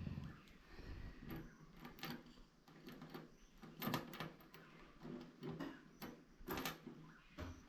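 Scattered clicks, knocks and scrapes of hand tools and metal parts being handled while a handle is fitted to a solar system's battery.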